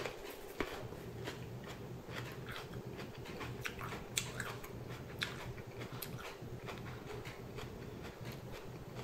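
A person biting into and chewing a raw, thick-walled Shepherd's Ramshorn sweet pepper: faint crisp crunches and mouth clicks about once a second, over a steady low room hum.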